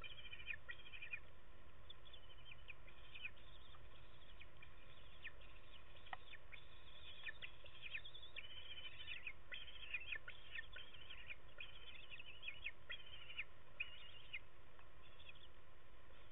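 Eaglets calling in the nest: runs of short, high-pitched chirps and cheeps, repeated again and again with brief pauses.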